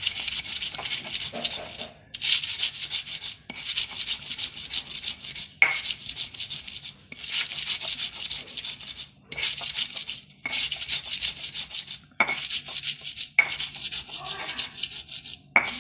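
Stone pestle grinding a wet paste of shallots, garlic, chili and tomato on a flat stone mortar (cobek): gritty scraping strokes in repeated runs of one to two seconds, with short breaks between them.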